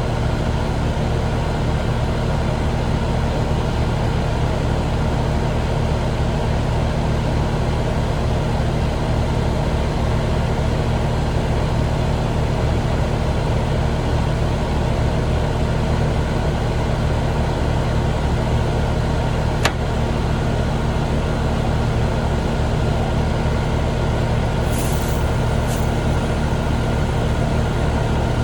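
Steady machine hum from running equipment, even throughout. A single sharp click comes about two-thirds of the way in, and two brief high hisses come near the end.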